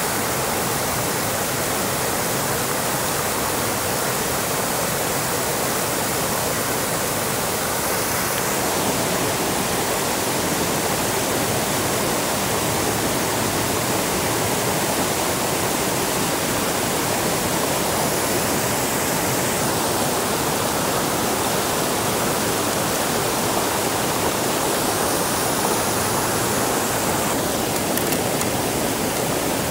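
A steady rush of water with no distinct drops or splashes, changing slightly in tone a few times.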